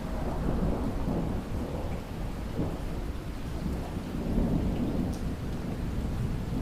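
Rolling thunder rumbling over steady rain. The rumble comes in at the start and swells again about four seconds in.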